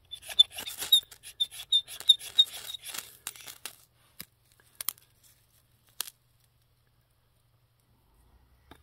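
Ferro rod struck repeatedly with a steel striker, a quick run of rasping strokes about three a second with a thin metallic squeal, throwing sparks onto plastic shavings that do not catch. Two sharp clicks follow a little later.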